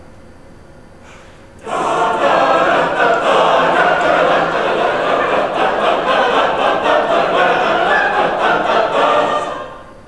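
Wind band playing a full, sustained chordal passage. It comes in suddenly about two seconds in and fades away just before the end.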